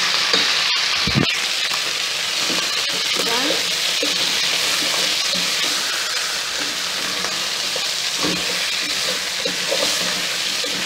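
Broiler chicken pieces sizzling in a pot as the last of the boiling liquid cooks off and they begin frying in their own fat, with a wooden spoon stirring and scraping against the pot. There is a dull knock about a second in.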